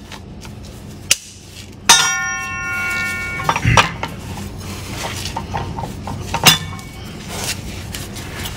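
Hand tools on the steel hub nut of a John Deere disc opener as it is torqued with a torque wrench to 100 foot-pounds: a metal clang about two seconds in that rings for over a second, a low thud, then a few sharp clicks later on.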